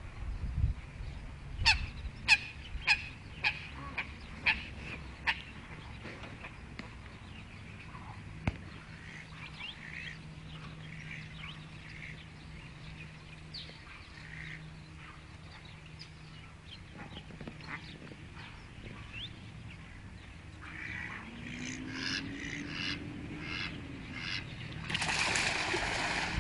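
Ducks calling in a run of loud, evenly spaced quacks, about two a second, then more calls later on. Near the end a rush of splashing and wingbeats as ducks take off from the water.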